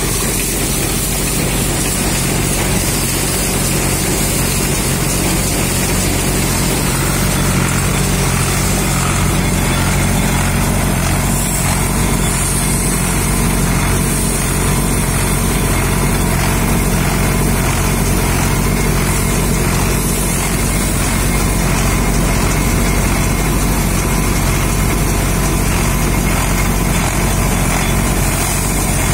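International 633 tractor's diesel engine running steadily at a constant speed, with the machinery it stands beside.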